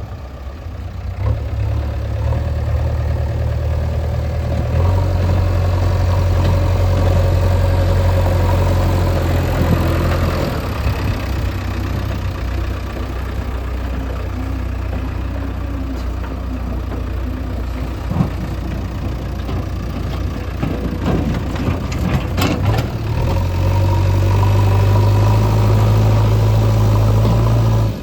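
Heavy diesel engine of earth-moving machinery running, louder for a few seconds at a time as it takes load. A few short knocks come about three quarters of the way through.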